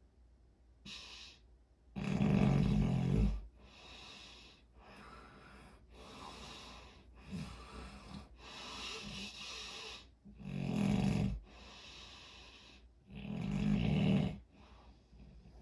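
Snoring in sleep: three loud snores with a low fluttering rattle, one about two seconds in and two close together near the end, with softer breathy breaths between them.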